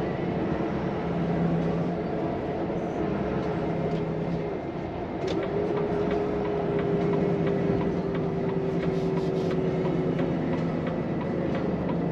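Volvo FM truck's diesel engine and road noise heard from inside the cab while driving, a steady drone whose engine tone rises briefly twice, about five seconds apart, with light clicks and rattles throughout.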